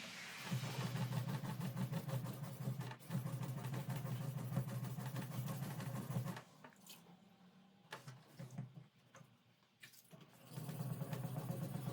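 A motor-driven machine running steadily, cutting off about six seconds in, with a few light clicks while it is off, then starting up again near the end.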